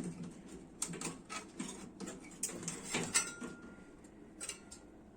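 Scattered metal clicks and knocks of parts being handled inside an opened microwave oven as the magnetron is worked loose, with two short faint tones near the middle and the end.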